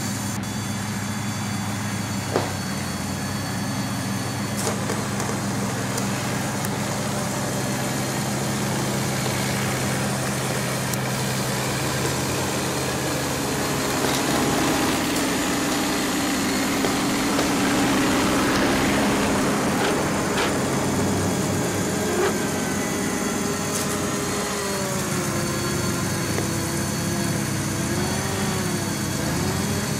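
Electric motors and gear trains of a large Meccano model crawler tractor running with a steady whirring hum. About halfway through a louder whirr comes in, and later a higher whine wavers up and down in pitch as the motors' load changes.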